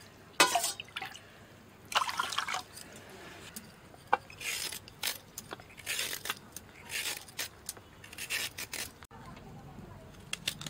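Water scooped in a small steel bowl and poured into a bowl of rice and lentils, splashing in two pours about half a second and two seconds in. These are followed by a series of short scrapes from a vegetable peeler drawn along a carrot.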